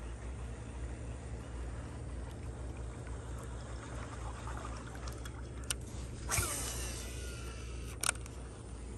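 Baitcasting reel during a cast: a click, then a short whir of the spool that falls in pitch over about half a second, and another sharp click, over a steady low hum.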